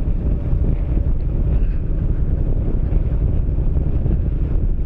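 Yamaha MT-07's parallel-twin engine running with a steady low rumble, mixed with wind buffeting the microphone.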